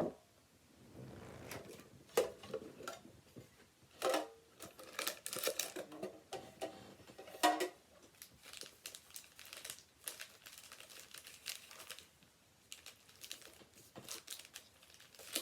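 Plastic packaging crinkling and rustling, with scattered light clicks and knocks, as a Pokémon card tin and its booster packs are handled and opened; the busiest stretch is in the middle.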